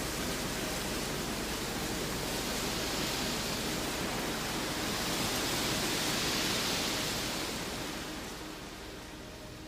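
A steady rushing hiss, like strong wind, swelling to its loudest about six seconds in and fading near the end.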